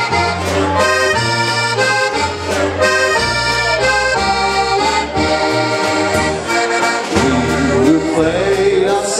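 Live Slovenian-style polka band: diatonic button-box accordions playing chords over steady bass notes and drums. A man's singing voice comes in near the end.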